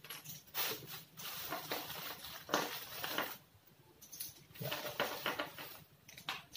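A clear plastic bag crinkling as a hand rummages through a bagful of loose removed potentiometers, the small parts clicking together. It comes in two spells with a short pause a little past halfway.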